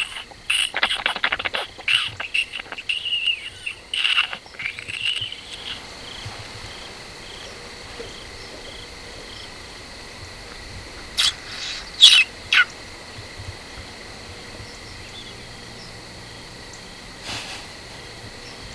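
High, wavering wild animal calls crowd the first six seconds. Under them, insects trill steadily with faint regular chirps, and three sharp calls come about eleven to twelve seconds in.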